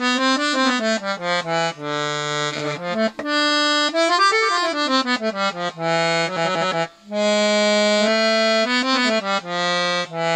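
Galanti piano accordion played on its low (bassoon) reed register alone: sustained single notes and a quick run up and back down the keys, with a short break about two-thirds through. The reeds are freshly cleaned, re-valved, re-waxed and tuned to pitch, and the register sounds nice.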